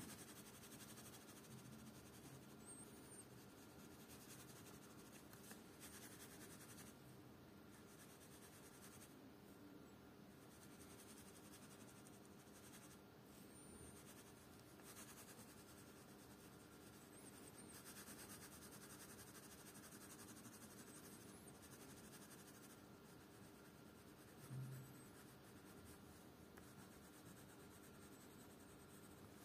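Faint scratching of a coloured pencil shading back and forth on paper, with one brief low thump near the end.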